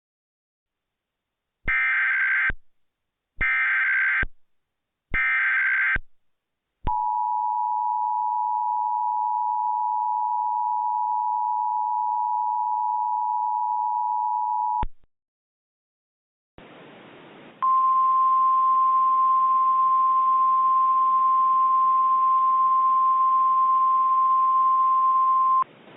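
Emergency Alert System SAME header: three short bursts of warbling digital data, followed by the EAS two-tone attention signal held for about eight seconds. After a short pause, a hiss comes in and a single steady alert tone sounds over it for about eight seconds, ending just before the voice message.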